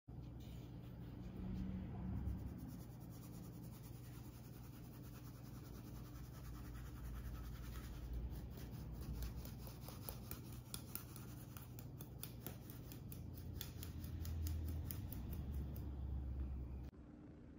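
Icing sugar being sifted through a small metal hand sieve: the sieve is shaken and tapped in quick, scratchy strokes. The strokes grow stronger about halfway through and stop shortly before the end.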